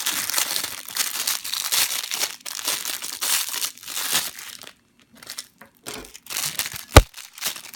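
Plastic packaging crinkling and rustling as it is handled and torn open, pausing for about a second midway. About seven seconds in comes a single sharp click, the loudest sound.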